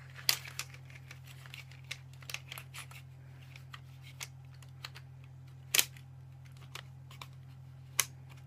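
Irregular clicks and rattles of small cooling fans and their wire being fitted onto a Cooler Master laptop cooling stand, with two louder clicks near six and eight seconds in. A steady low hum sits underneath.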